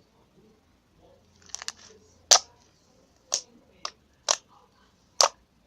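Slime mixed with EVA foam clay being squeezed and played with, giving sharp pops one after another, roughly every half second to a second, the loudest a little over two seconds in.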